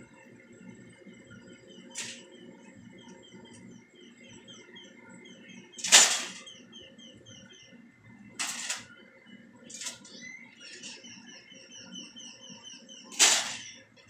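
Short rustling, scraping bursts from a corn broom's bristles as a rabbit lunges at and attacks the broom, five times, loudest about six seconds in and near the end. Faint, high, repeated chirping in the background.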